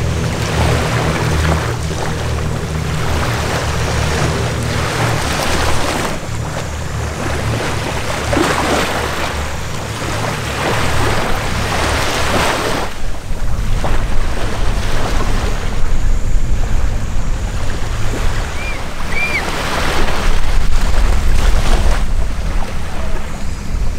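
Steady low drone of a formation of propeller planes flying over, mixed with wind noise on the microphone. The wind rumble grows stronger about halfway through.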